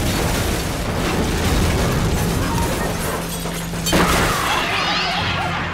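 Cartoon sound effect of a giant jet-engine fan blasting air: a loud, dense rush with a steady low hum. About four seconds in there is a sudden hit, followed by warbling, whistle-like chirps.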